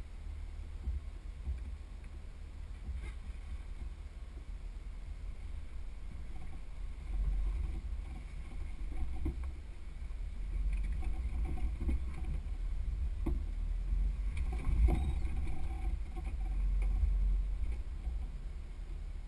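Muffled low rumble of a Jeep crawling over slickrock, picked up by a camera mounted on its body. The rumble swells about a third of the way in and again in the second half, and a few scattered knocks come through as the vehicle jolts over the rock.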